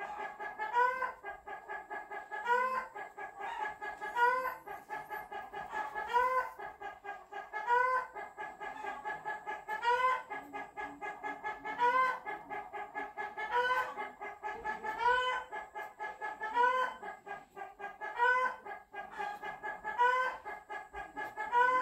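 Chickens clucking: a fast, continuous run of clucks with a louder rising call about every one and a half to two seconds.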